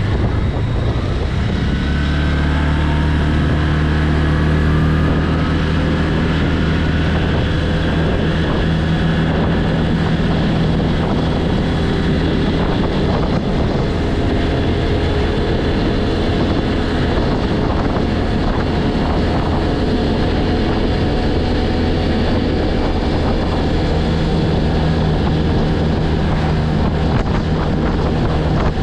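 ODES 800 quad's engine running under way, rising in pitch as it accelerates over the first few seconds and then holding a steady cruising speed, with wind noise on the microphone.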